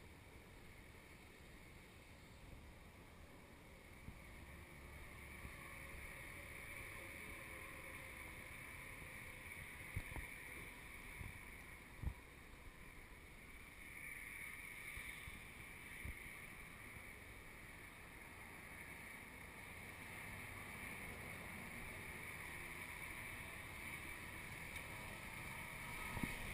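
Faint outdoor ambience on a walking camera's microphone: low wind rumble with a steady high hiss, broken by a few soft knocks about ten, twelve and sixteen seconds in.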